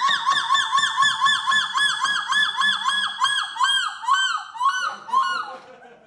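A woman's voice imitating a seagull's call: one held high note, then a rapid series of yelping, arched notes, about five a second, that slow down and fade out near the end.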